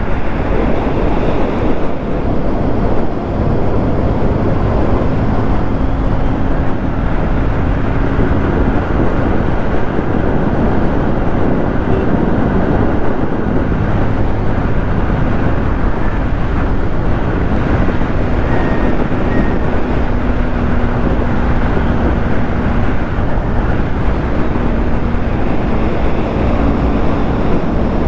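Motorcycle cruising at about 90 km/h, its engine running steadily under heavy wind rush on the microphone.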